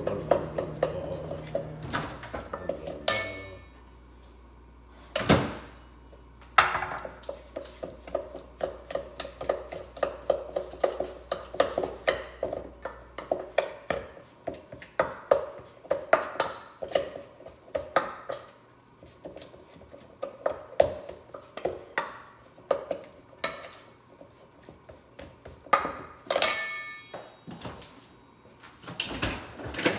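A utensil scraping and clinking against a stainless steel mixing bowl as cookie dough is stirred, in a run of short strokes about two to three a second. Twice the bowl rings out with a bright ping, once near the start and once near the end.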